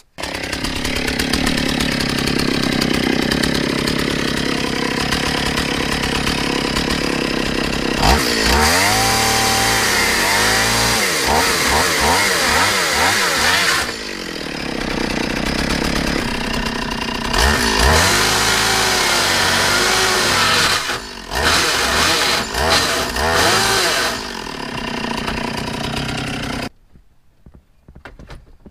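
Stihl two-stroke chainsaw running hard as it cuts to enlarge the radio opening in a pickup's plastic dashboard. Its pitch repeatedly dips and recovers as the chain bites, and it stops abruptly near the end.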